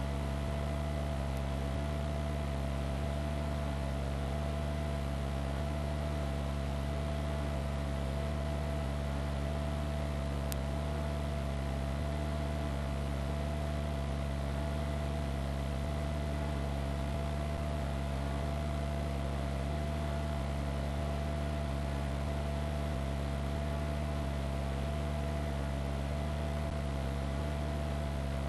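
Steady drone of a helicopter's engine and rotors, with a constant whine over a low rumble and hiss, heard from on board.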